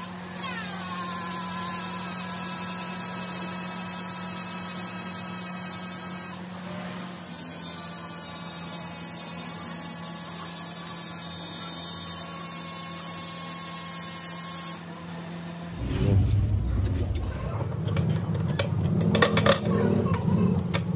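Electric straight grinder whining steadily as its polishing wheel works a steel shaft turning in a lathe. The whine stops about 15 seconds in, and is followed by louder, irregular clattering and clicking as the grinder's wheel is handled and changed.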